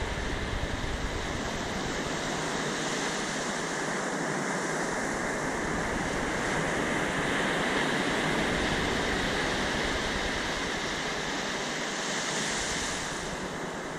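Ocean surf breaking and washing up a sand beach: a steady rush that swells in the middle, brightens a little, then eases near the end.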